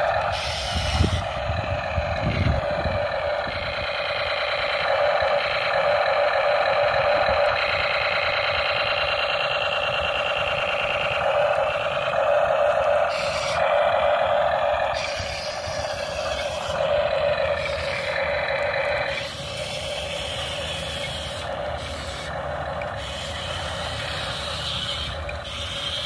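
Toy RC battle tank running, its small built-in speaker playing a thin, tinny tank-engine sound effect. It steps down in level about three-quarters of the way through.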